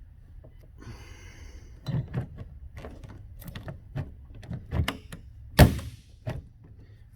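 The door latch of a 1937 MG TA clicking and knocking as the door is pushed shut, with one hard thunk about five and a half seconds in. The door is being worked to catch the latch's second detent.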